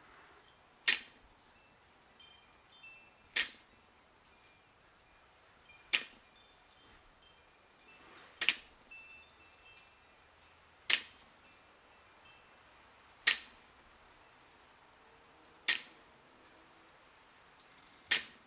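Loaded barbell with bumper plates giving a sharp clack each time it touches down at the bottom of a deadlift rep, eight times at an even pace of about one every two and a half seconds.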